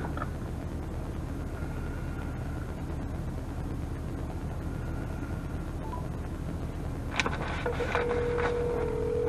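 Steady low mechanical hum. About seven seconds in come a few sharp clicks, followed by a short steady tone.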